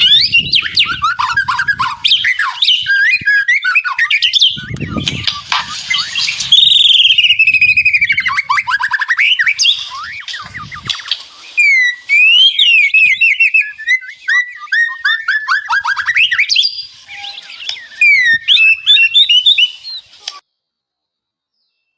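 White-rumped shama singing a fast, varied song of whistles, rapid trills and rattling chatter. The song cuts off suddenly near the end.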